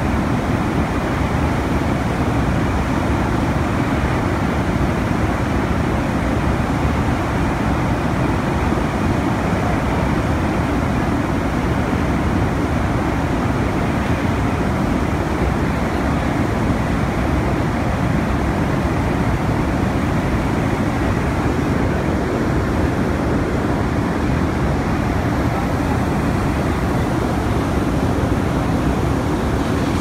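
Steady, loud rushing roar of a blast furnace during a tap: molten iron pouring from the opened tap hole and running down the cast-house runner, sparks showering.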